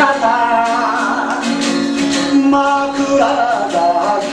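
A man singing a slow song in long held notes, accompanying himself on a strummed acoustic guitar.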